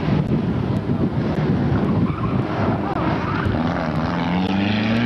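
Lancia Delta Integrale rally car at speed through a corner, its engine note climbing steadily over the last second and a half as it accelerates away.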